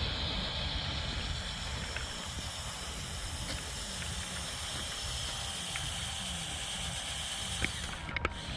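Lego RC crawler's small electric motors and plastic gearing whirring steadily as it crawls, with a few faint clicks along the way.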